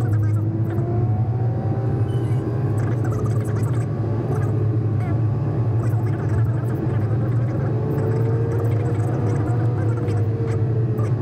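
A vehicle driving steadily on a paved road, heard from inside the cabin: a steady low engine and road rumble, with faint tones that slowly rise and fall in pitch.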